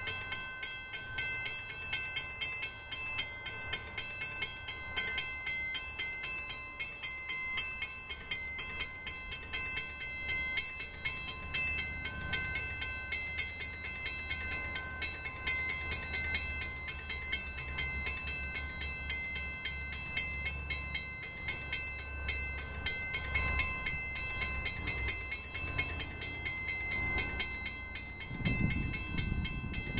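Railroad grade crossing bell ringing steadily in a fast, even pattern while the crossing is activated, under a low rumble of an approaching train that grows louder near the end.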